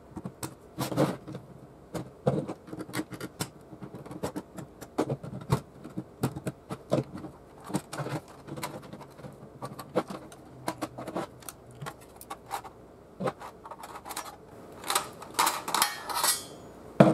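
Flathead screwdriver prying the sheet-metal bottom cover off an NEC CD-3010A CD-ROM drive: irregular clicks, knocks and scrapes as the tabs are levered and the drive is handled, with a denser run of clicks near the end as the cover comes loose.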